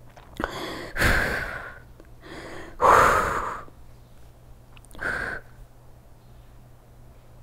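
A woman breathing hard from exertion during an abdominal exercise: five loud, forceful breaths in quick succession, the loudest about three seconds in, the last about five seconds in.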